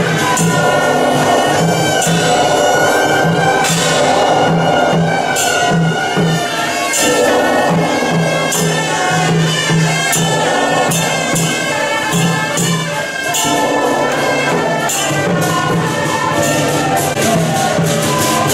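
Temple procession music: a melody on wind instruments over a steady drum beat, with frequent cymbal clashes.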